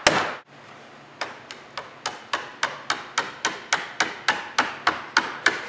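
One solid mallet knock on a panel's connector strip, then, from about a second in, a steady run of quick, even hammer taps, about three a second, driving a corner strip down into the top of a panel pole.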